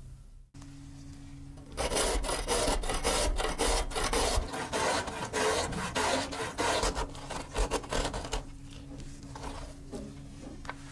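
Zucchini being grated on a stainless-steel box grater: fast, repeated rasping strokes starting about two seconds in and stopping about eight seconds in, then only faint scattered clicks.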